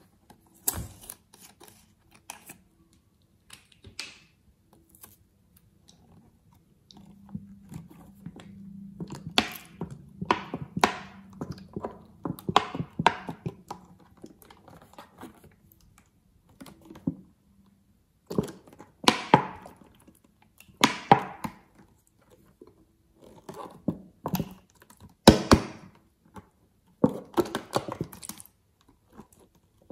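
Thick yellow slime squeezed out of a soft plastic squeeze bottle into a bowl of slime: irregular wet clicking and crackling as the slime squelches out of the nozzle and the bottle is pressed, with a few louder pops in the second half.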